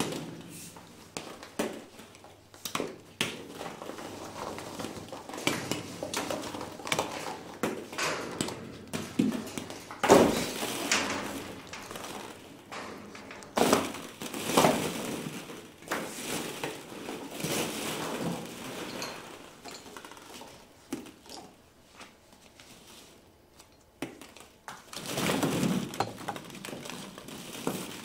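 Hollow plastic ball-pit balls clattering and rustling against each other as they are pushed, stirred and tossed about, in irregular bunches with louder clatters now and then.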